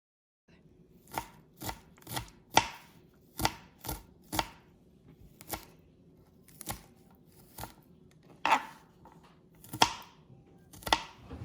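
Kitchen knife chopping karpuravalli (Indian borage) leaves: about fourteen sharp chopping taps, unevenly spaced at roughly one or two a second, over a faint steady hum.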